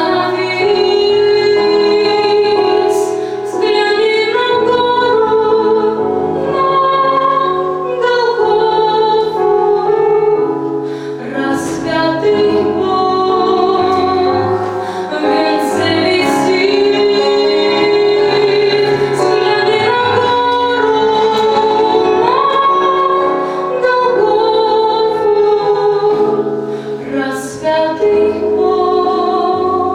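A woman singing a song over instrumental accompaniment.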